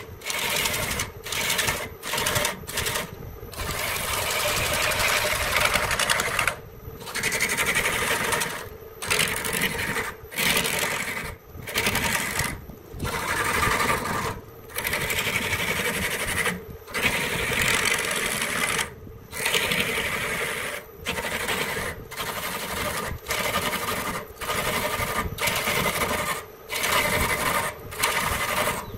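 Woodworking power tool running and cutting wood: a steady mechanical whir broken by many short gaps every second or two.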